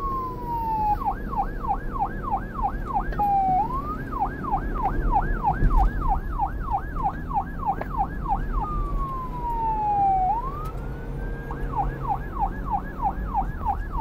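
A police-style siren switching back and forth between a slow falling wail and a fast yelp of about four or five sweeps a second, changing mode several times.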